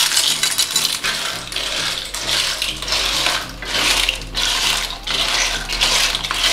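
Clam shells clinking and clattering against one another and the metal pan as they are handled, a dense run of small hard clicks over a hiss.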